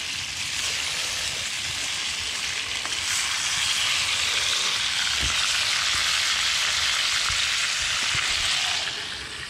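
Red rock cod fillets sizzling steadily as they fry in a cast-iron skillet over a wood fire, the sizzle dying down near the end.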